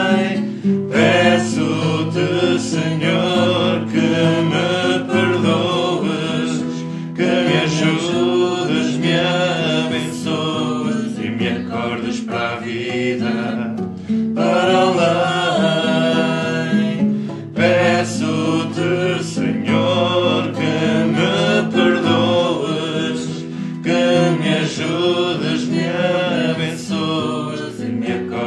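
A man singing a Portuguese devotional song, accompanied by a nylon-string classical guitar, with short pauses between sung phrases.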